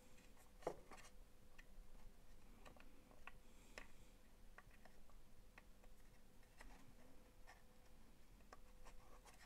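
Faint, scattered clicks and light rubbing of small plastic and rubber parts being handled and pressed into a plastic tool housing during reassembly.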